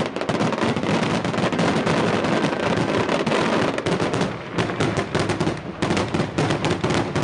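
Daytime fireworks and firecrackers going off in a rapid, continuous crackle of bangs.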